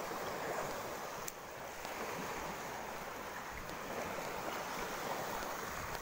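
Small waves washing onto a sandy beach: a steady rush of surf, with wind on the microphone.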